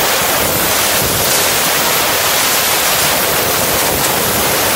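Compressed-air blow gun blasting steadily, blowing leftover sandblasting grit out of the corners of a freshly blasted engine block.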